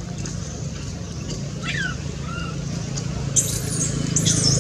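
A few short high-pitched squeaks and chirps from animals, the sharpest ones late on, over a steady low hum.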